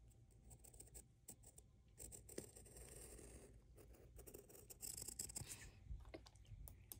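Faint scratching of a colored pencil tip on paper as a curved line is drawn, with a few light clicks.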